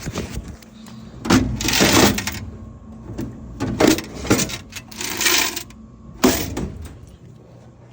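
Coins jingling and clattering with metal clanks, in several bursts, as change is handled and emptied from a vending machine's coin box.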